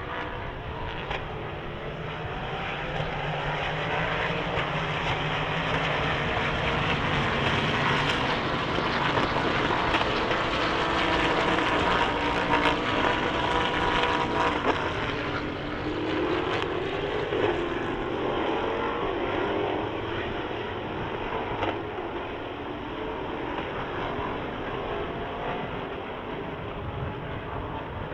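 Race car engines running at speed on the circuit as cars pass, the sound building to its loudest about a third to halfway through and then easing off, with engine pitch rising and falling as the cars shift and brake.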